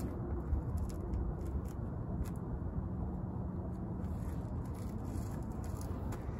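Steady low outdoor background rumble with a faint hum, of the kind distant traffic makes.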